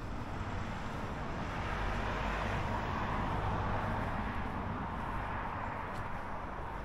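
A road vehicle driving past: tyre and engine noise that builds to its loudest in the middle and then fades as it moves away.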